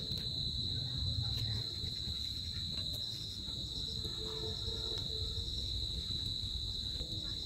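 Insects chirring in one steady, unbroken high-pitched drone, with a low rumble beneath.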